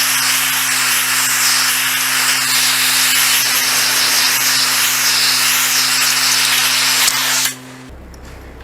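Gas torch flame hissing steadily while heating a steel part of a backhoe boom to bend it into shape; it cuts off abruptly near the end.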